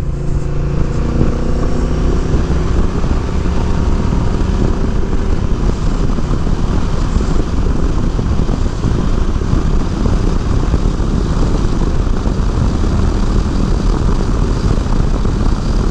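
Wind rushing over the microphone of a Honda Rebel 1100 DCT motorcycle riding at speed, mixed with the parallel-twin engine's steady running; the engine's tone is clearest in the first few seconds.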